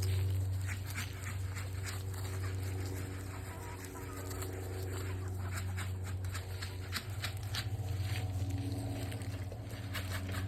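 A flock of chickens clucking and calling in short scattered notes, over a steady low hum.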